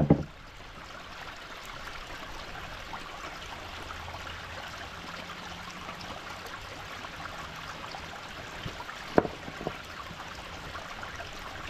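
Small brook trickling steadily, with two short knocks about nine seconds in, the second fainter, as the wooden waterwheel is handled on its supports.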